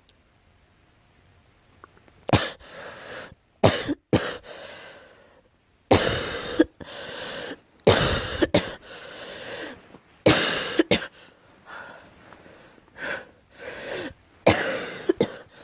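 A girl coughing repeatedly: about a dozen sudden coughs in short bouts, often two in quick succession, starting about two seconds in after a quiet start.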